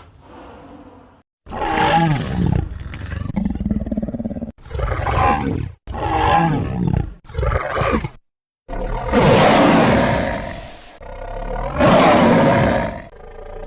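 A run of custom Tyrannosaurus rex roar sound effects, one after another: about seven separate roars and growls, each a second or two long, with short breaks between them. The first second is faint before the first loud roar comes in.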